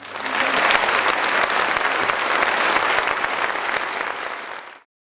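Audience applauding, many people clapping together; the applause cuts off suddenly near the end.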